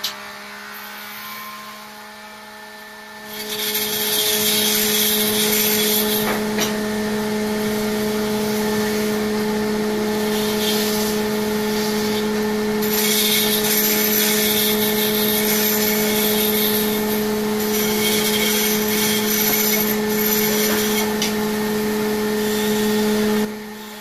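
Electric wood lathe's motor humming steadily. About three seconds in, a hand-held tool is pressed against the spinning wooden baluster, giving a loud, uneven scraping hiss that swells and eases off and stops just before the end.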